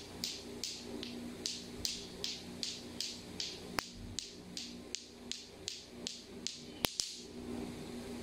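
Lato-lato clackers, two hard plastic balls on strings, knocking together in a steady rhythm of about two or three clacks a second, stopping about seven seconds in.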